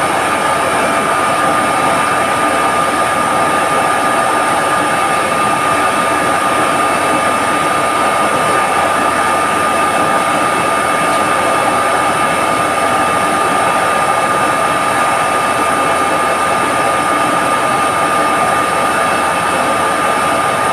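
Steady machinery drone of a running reverse osmosis plant, its pumps and motors, with a high steady tone through it.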